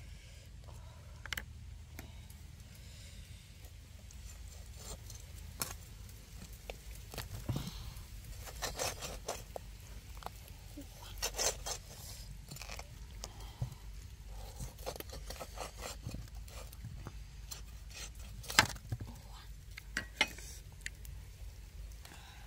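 A knife scraping and knocking against a metal wok while cutting through a cooked duck, in scattered clicks and scrapes, with one sharp knock about three-quarters of the way through.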